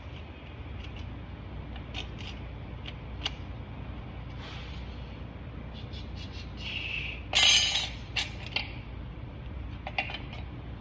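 Light metallic clinks and taps of steel plates and clutch discs being stacked into a TH350 transmission's clutch pack. A louder brief scrape comes about seven and a half seconds in, over a steady low hum.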